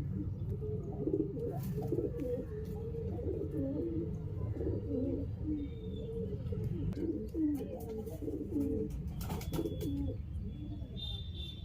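Several pigeons cooing continuously, many low warbling coos overlapping, with a few light clicks among them.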